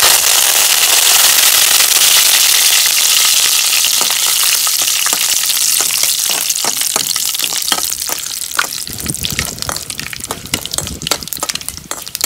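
Curry leaves hitting hot oil with mustard seeds and dried red chillies in a kadai: a sudden loud sizzle that slowly dies down into scattered crackling and popping as the tempering is stirred.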